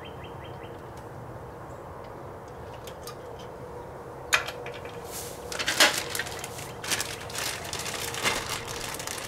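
A clear plastic bag crinkling as it is handled, starting about halfway through just after a single sharp click and going on in irregular crackles.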